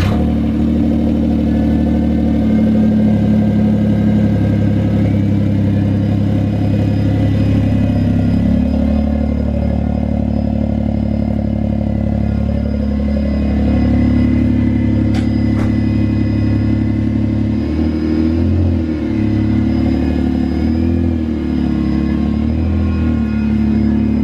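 Smart Fortwo's 1-litre three-cylinder engine running just after a cold start, heard through a newly fitted Solo Performance aftermarket exhaust with a little rumble to it. The note holds steady, then wavers up and down a few times in pitch near the end.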